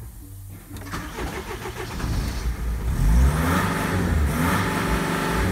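Mercedes Vito W638's 2.2 CDI four-cylinder common-rail diesel (OM611) started: the starter cranks briefly about a second in, then the engine catches about two seconds in, its revs climb and then hold steady at a fast run.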